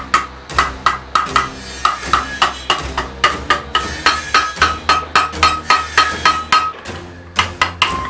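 Hammer tapping sheet metal over a steel stake: quick, even strikes about three to four a second, each with a short metallic ring, with a brief lull near the end.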